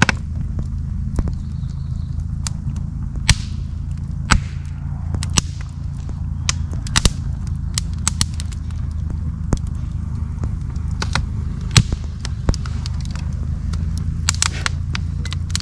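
Campfire of split logs burning, crackling with many sharp, irregular pops and snaps over a steady low rumble.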